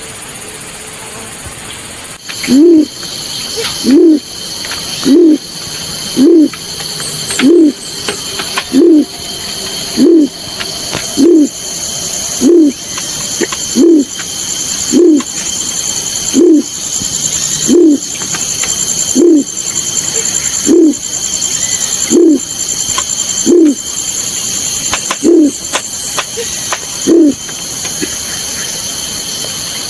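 Recorded bird call of the balorinay, used as a lure sound: a short, deep hoot that rises and falls in pitch, repeated loudly about every 1.3 seconds after a short gap at the start, over a steady high hiss.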